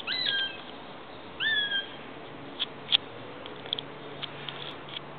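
Juvenile Cooper's hawk giving two short whistled calls, each a quick upward slide into a held, slightly falling note, contact calls to its brood-mates. Several brief sharp ticks follow over the next few seconds, the loudest about three seconds in.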